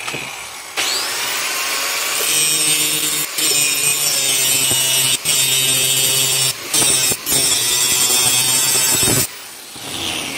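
Angle grinder with an abrasive disc grinding the edge bevel of a steel knife blank, throwing sparks. It spins up about a second in, runs loud with several brief dips as the disc comes off the steel, and is switched off near the end, winding down with a falling whine.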